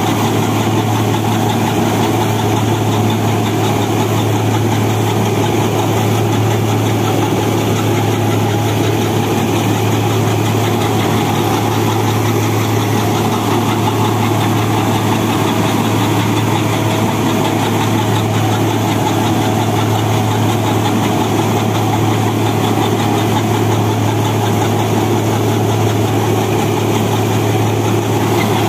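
Turbocharged Mahindra Arjun Novo 605 tractor diesel engine running steadily under load, powering a straw reaper through its PTO. Mixed in is the reaper's own steady rushing clatter as it cuts stubble and blows chopped straw.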